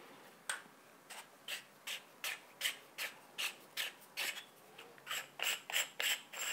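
Screw-on end cap of a microphone's tube-shaped travel case being twisted open by hand. The threads turn in short scraping strokes, about two or three a second, which come faster and louder near the end.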